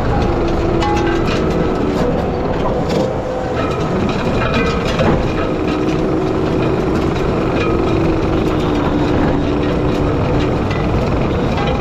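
Skid steer engine running under load while its hydraulic power rake attachment churns through dry soil, with a steady hydraulic whine that wavers slightly in pitch and scattered sharp clicks.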